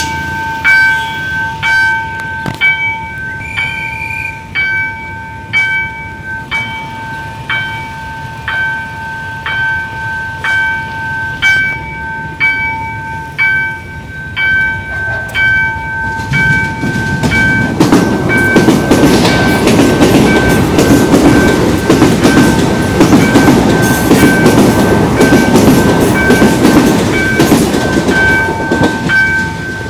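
Level-crossing warning bell ringing in a steady, brisk series of strikes. From about 17 seconds in, an electric commuter train runs over the crossing, its wheels rumbling and clacking on the rails, louder than the bell, while the bell keeps striking.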